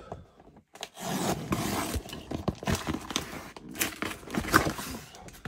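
Safety box cutter slitting the packing tape along a cardboard box's seam, a rasping scrape that starts about a second in, followed by the cardboard flaps and tape being rubbed and handled with scattered knocks.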